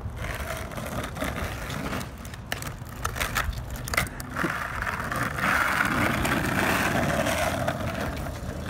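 Skateboard wheels rolling and rumbling over rough asphalt, with a few sharp clicks and knocks in the first half. The rolling noise grows louder past the middle.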